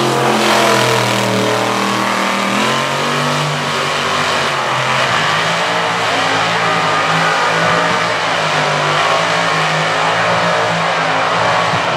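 Mud-bog truck engine revving hard and steadily under load as its tires churn through deep mud, its pitch climbing about two and a half seconds in and then wavering.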